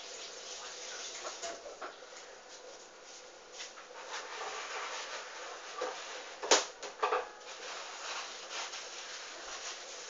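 Hoover Dynamic front-loading washing machine on its gentle wool and silk wash: water and wet laundry swishing in the slowly turning drum. A few sharp clicks about six and a half and seven seconds in.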